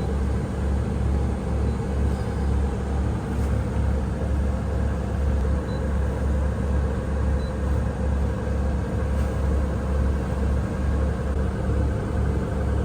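A sailboat's inboard engine running steadily while motoring under way, a low, even throbbing drone.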